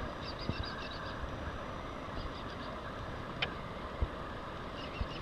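RC scale rock crawler creeping slowly over rock, its small electric drivetrain faint under steady outdoor background noise, with a few light knocks and short high chirps.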